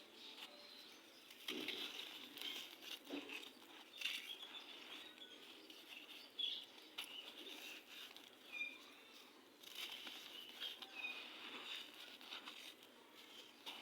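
Clumps of gritty red sand crumbling and crunching, in bursts of grainy crackling every few seconds.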